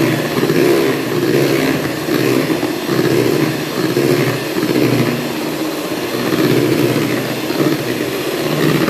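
Electric beater running steadily, whipping eggs and powdered sugar in a bowl up to the fluffy stage; its sound swells and dips slightly about once a second as the beaters move through the mixture.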